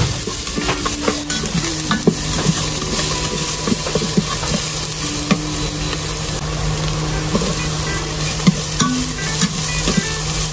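Minced garlic and onion sizzling in a little oil in a multi-function slow cooker's nonstick inner pot, stirred and pushed around with a slotted spatula, with many light scrapes and clicks of the spatula against the pot.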